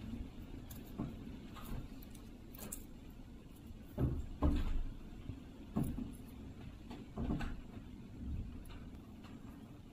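Thin stainless steel skewers being handled in a bundle, clicking and knocking against each other and the tabletop at irregular moments, with a few louder knocks midway, over a low steady hum.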